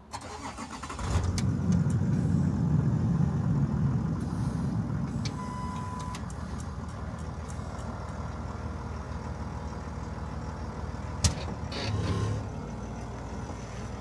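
Land Rover Discovery's engine cranking and catching about a second in, running loudly at first, then settling to a steady idle. A single sharp click comes near the end, followed by a short rise in engine sound as the SUV moves off.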